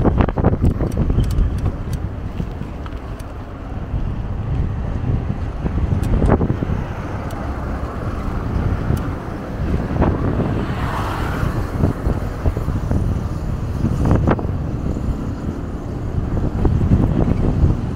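Wind rumbling on the microphone of a camera riding on a moving bicycle, mixed with road noise, with a few sharp knocks and a brief swell of hiss about eleven seconds in.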